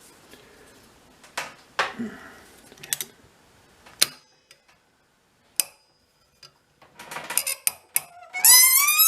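Metal parts and hand tools clicking and clinking as they are handled, in scattered single knocks. Near the end comes a loud squeal that rises in pitch over about a second.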